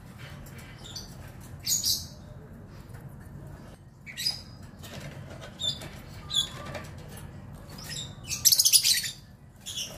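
Lovebirds giving short, high-pitched chirps every second or two, then a loud burst of rapid chattering calls near the end.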